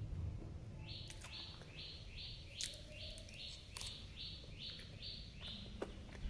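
A bird calling in a rapid run of short, identical chirps, about three a second, which stops near the end. A few sharp clicks sound in between.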